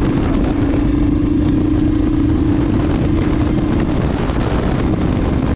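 Royal Enfield motorcycle engine running steadily while riding, with wind noise on the helmet-mounted action-camera microphone.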